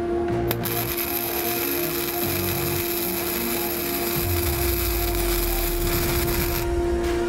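MAG (gas-shielded wire-feed) welding torch striking an arc on steel about half a second in and running a steady weld, stopping shortly before the end.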